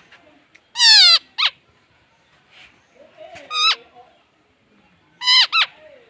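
Baby bird squawking: five high, sharply falling calls, a long one and a short one about a second in, one near the middle and a quick pair near the end.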